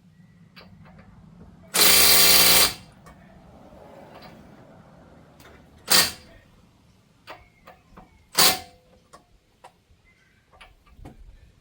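Impact wrench firing in bursts: one run of about a second, then two short blips. Small metallic clicks and clinks of tools come between the bursts.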